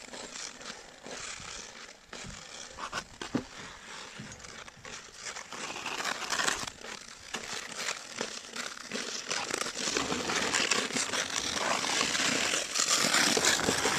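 Ice skate blades scraping and crunching on rough outdoor pond ice, a crackly scraping that grows louder near the end as the skater comes close.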